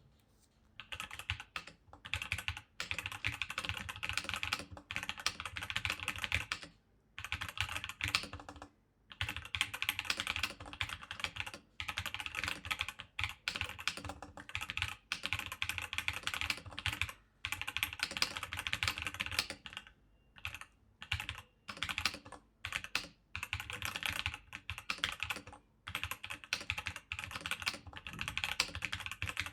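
Typing on an all-steel mechanical keyboard (an Omega60 replica typewriter-style board built from steel plates): rapid, clattering keystrokes in runs with brief pauses, starting about a second in.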